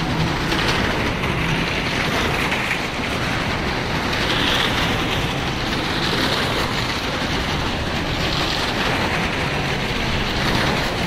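Maruti cars circling on the vertical wooden wall of a well-of-death arena: a steady, loud rumble of small engines and tyres running on the planks. It swells a few times as cars pass close by.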